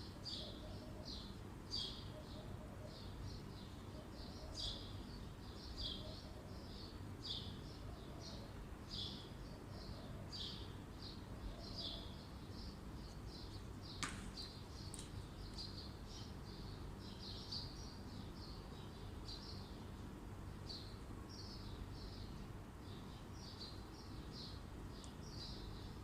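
Small birds chirping over and over, short high-pitched calls several times a second, over low steady background noise. One sharp click about halfway through.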